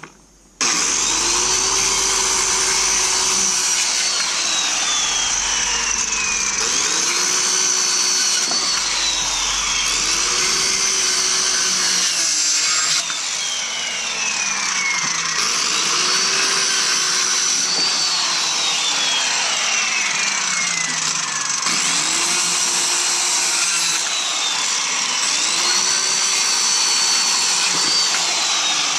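Circular saw starting up about half a second in and cutting through pallet boards, its motor pitch repeatedly dropping as the blade loads in the wood and then climbing back.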